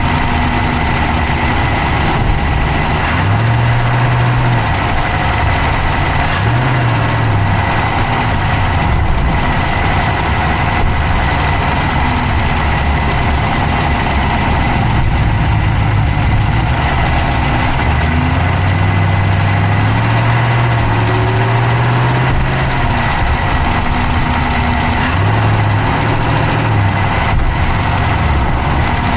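Dodge Charger's Hemi V8 idling, heard close up from inside the engine bay, with the fast clicking the owner is recording the engine for.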